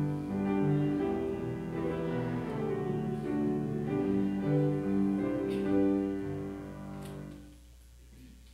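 Grand piano playing a slow piece of held notes, which fades out and ends about seven and a half seconds in, leaving only faint room hum.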